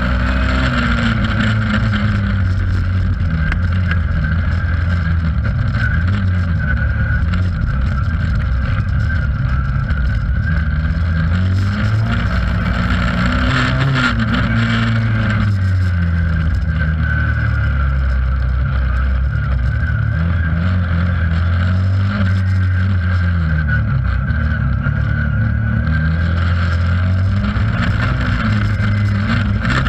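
Race car engine heard from inside its stripped cabin, running hard throughout, its revs rising and falling again and again as the driver accelerates, lifts and shifts.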